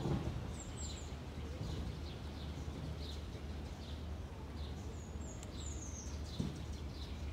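Small birds chirping, short high notes with falling pitch repeating every second or so, over a steady low background hum. A dull low thump comes at the start and another about six and a half seconds in.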